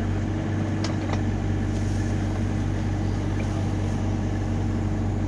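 Compact excavator's diesel engine running steadily at working speed, with a couple of light metallic clanks about a second in.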